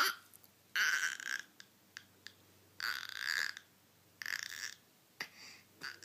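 A six-month-old baby making a string of strange noises: about five short, breathy sounds, each under a second, with brief pauses between them.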